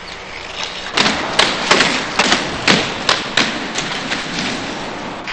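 A street hockey stick knocking a ball along pavement and concrete. It makes a quick, irregular series of thumps and taps, about three a second, starting about a second in, over the steady noise of skate wheels rolling.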